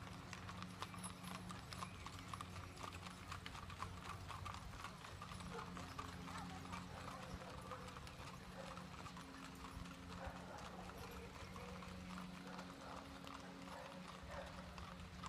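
Hooves of ridden mules and horses walking on a paved road, a faint, irregular clip-clop of many hoofbeats.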